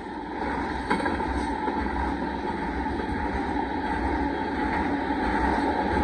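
Norfolk Southern gravel train's freight cars rolling through a grade crossing: a steady rumble of wheels on rails with a steady ringing tone over it, and a single click about a second in.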